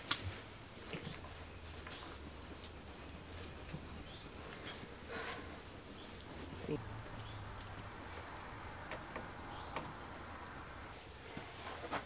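Steady high-pitched chirring of insects, with a few faint clicks and rustles.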